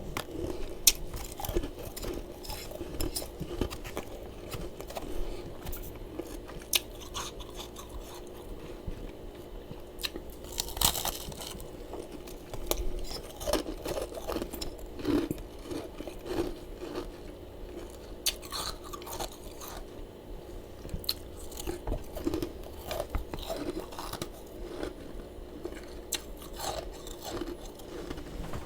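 Mouth chewing and crunching freezer frost close up, with irregular crisp crunches and crackles. A faint steady hum runs underneath.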